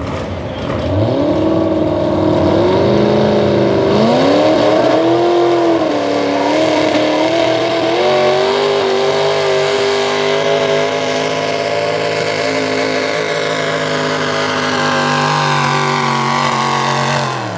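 Small-block V8 of a high output class pulling truck making a pull run. It revs up about a second in, rises and dips a few times over the next few seconds, then holds at high revs for most of the run and drops off sharply near the end.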